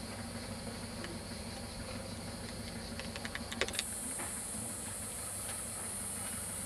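Steady outdoor street ambience: an even hiss, with a high hiss that suddenly gets louder a little under four seconds in, and a few scattered faint clicks.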